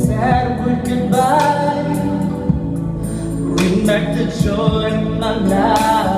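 A singer's voice through a PA, held notes that bend and waver, over a backing track of sustained low chords.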